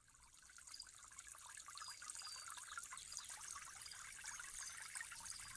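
Waterfall water splashing and trickling, faint and steady, fading in over the first second or so, with a few faint high chirps now and then.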